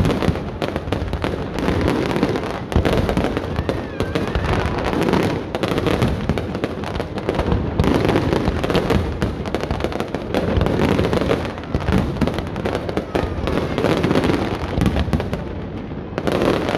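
Aerial fireworks display going off in a dense, continuous barrage: many bangs and crackles overlapping with no break.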